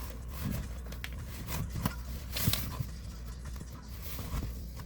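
Irregular light clicks, taps and scrapes of utensils and cookware being handled while cookie dough is worked, over a steady low hum.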